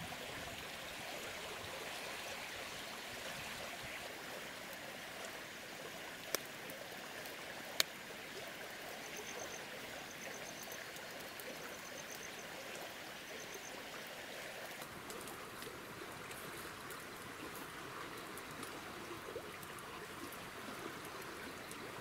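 Steady rushing of a small stream. Two sharp clicks come about a second and a half apart, and a little later there are four short runs of rapid, high chirping.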